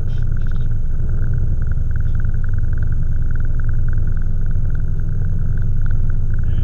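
Fishing boat's engine running steadily: a loud, even low rumble with a fast-pulsing higher note above it.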